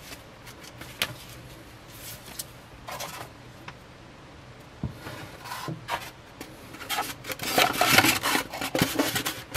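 Hands handling toothbrush packaging: scattered light clicks and rustles, then from about seven seconds in a dense run of scratchy rubbing as fingers work in the expanded polystyrene foam tray.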